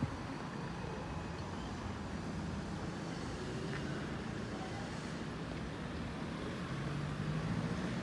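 Street traffic: cars driving slowly past, their engines a low hum that grows louder near the end, over a steady hiss of background noise.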